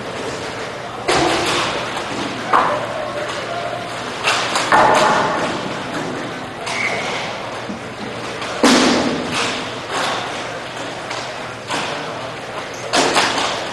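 Roller hockey play in a large echoing hall: a handful of sharp thuds and clacks from puck, sticks and players hitting the boards and the sport-tile floor at irregular moments, the strongest about nine seconds in, over a steady din of skating.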